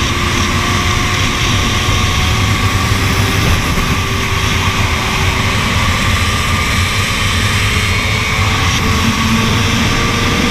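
Sport motorcycle engine running at a steady cruise under heavy wind rush on the microphone, the engine note drifting slightly up and down in pitch.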